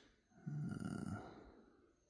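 A man's short, low exhale through the nose with a little voice in it, lasting about a second and fading out.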